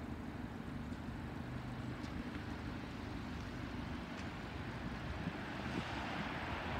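A car engine idling steadily at low revs. Near the end a rising rush of noise grows louder over it.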